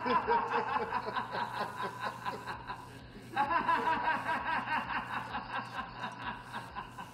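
A woman laughing hard in two long bouts, the second starting about three and a half seconds in.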